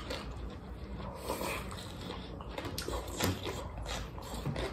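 Close-up eating sounds: chewing and slurping of food taken with chopsticks, with a few light clicks.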